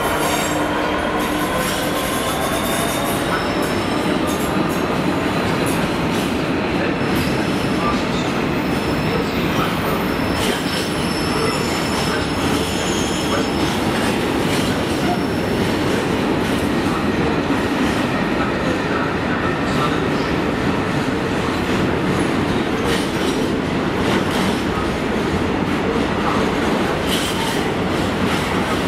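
A freight train of covered steel-coil wagons, hauled by a Class 66 diesel, rolling steadily past close by. It makes a continuous rumble of wheels on rail, with frequent clicks and knocks over the rail joints and thin high wheel-squeal tones in the first few seconds.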